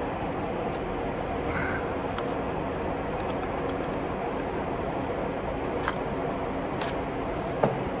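Steady mechanical background hum and noise of a truck workshop, with two short sharp clicks, one about six seconds in and a louder one near the end.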